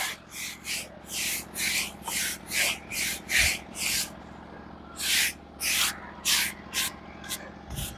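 Hand brush scrubbing dirt off the bark of a log: quick rasping strokes about two a second, a short break about four seconds in, then another run of strokes. A small engine runs steadily underneath.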